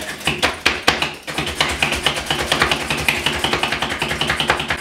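Fast, steady clicking of a wire whisk beating a pumpkin-and-egg mixture in a glass bowl, mixed with heavier knocks of a Slap Chop hand-plunger chopper being pounded down.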